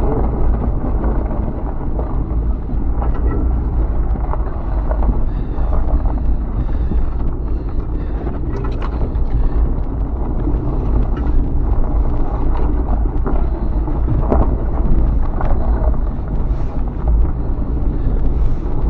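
Inside the cab of a vehicle driving a snowy, icy dirt trail: a steady low rumble of engine and tyres, with scattered knocks from the rough track.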